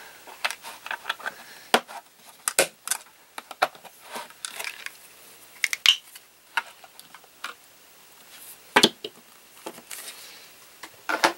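Irregular small clicks, taps and knocks of plastic art supplies handled on a tabletop: a paint palette's little lidded plastic wells and a tube of titanium white acrylic being opened. A louder knock comes about three quarters of the way through.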